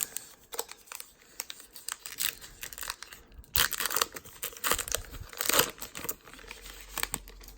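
A baseball card pack wrapper being torn open and crinkled, in irregular rustles and clicks, with the loudest tearing about three and a half and five and a half seconds in.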